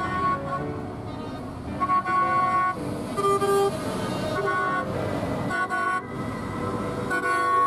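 A tractor decorated with Christmas lights drives past with its engine running. Over it sound loud, tooting, horn-like musical notes that change pitch every half second or so, strongest about two, three and seven seconds in.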